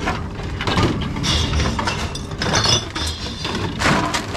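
Reverse vending machine running, a steady mechanical hum with rattling from its intake. Glass bottles clink as they are picked out of a plastic tub and fed in.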